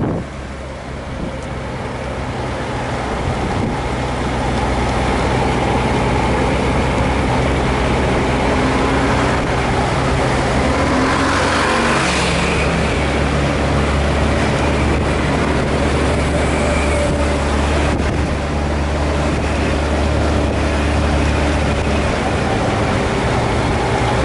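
Honda Gold Wing GL1500 motorcycle's flat-six engine running while riding at town speed, with road noise. The engine grows louder over the first few seconds and rises in pitch about ten seconds in as it accelerates, with a brief rush of noise near the middle.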